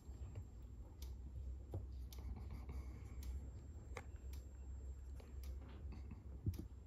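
Soft, irregular taps and clicks of a fingertip pressing a Deye inverter's touchscreen menu buttons, over a steady low hum.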